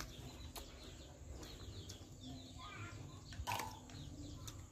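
Small birds chirping faintly around a rural yard, with one rising call about halfway through. About three and a half seconds in, a metal spoon clinks once against a ceramic bowl with a short ring.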